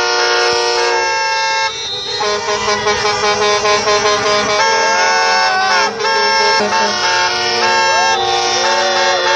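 Many truck air horns and vehicle horns honking at once: overlapping long blasts at different pitches, some bending up and then down as they sound and cut off.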